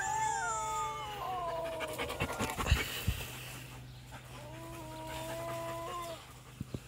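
Dog howls: one long drawn-out howl that slides down in pitch, then after a pause a second, level howl, most likely a played-back recording of dog howling. Between them comes a short burst of clicks and knocks.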